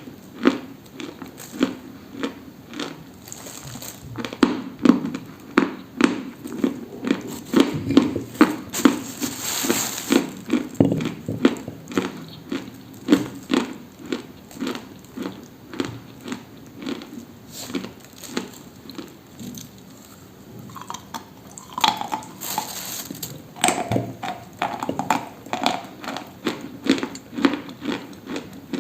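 Dry, brittle material being crunched close to the microphone: a steady run of crisp crunches, a few a second, thinning briefly about two-thirds of the way through.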